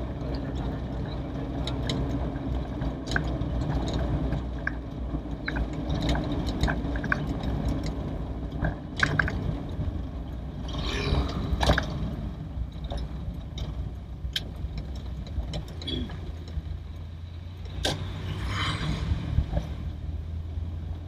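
Cabin sound of an old Toyota Corolla DX on the move: steady low engine and road rumble, with scattered short clicks and knocks.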